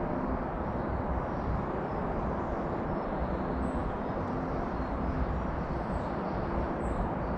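Steady low outdoor rumble with a faint hum in it, and a few faint, brief high bird chirps now and then.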